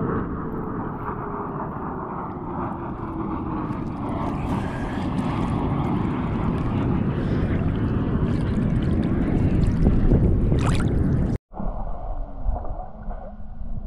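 Steady wind and water rushing noise, growing slightly louder, then cutting off abruptly about eleven seconds in. A quieter stretch of water sound follows.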